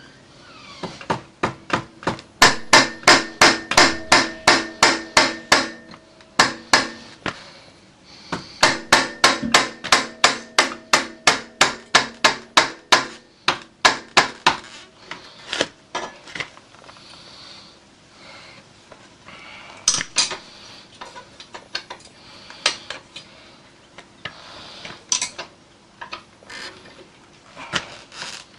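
Hammer blows on metal at a motorcycle's steering head, struck in quick runs of about four a second with short pauses, then slowing to scattered single strikes after about halfway. Each blow rings, typical of driving a steering head bearing race out or in.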